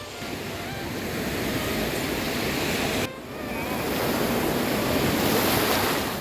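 Sea surf rushing on a beach, swelling and falling like breaking waves; it cuts off sharply about three seconds in, then builds again.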